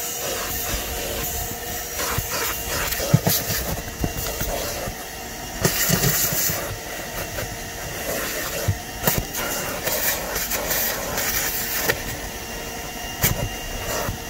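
Car-detailing cleaning machine running steadily while its hose wand is worked over the floor under a folded rear seat, with louder bursts of hissing about six seconds in and near the end, and a few sharp knocks of the nozzle against the car.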